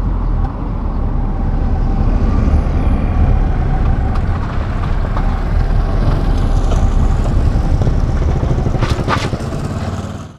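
A car driving, with steady low engine and road rumble. A brief high-pitched sound comes about nine seconds in, and the sound cuts off suddenly.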